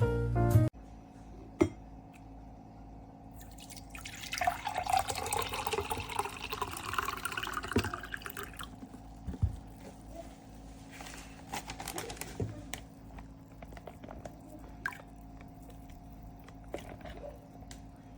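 Liquid pouring for about five seconds, with scattered small knocks and clinks before and after.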